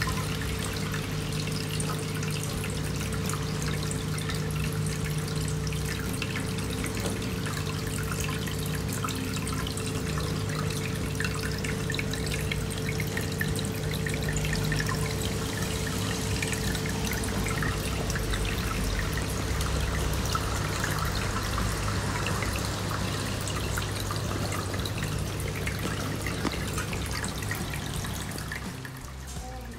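Aquarium hang-on-back filter's outflow trickling and splashing into the tank water, with a steady low hum underneath.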